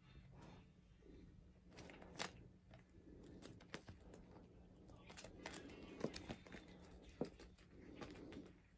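Faint scratching and rustling of a cat biting and bunny-kicking a plush toy on carpet, with a few sharp clicks, the loudest about two, six and seven seconds in.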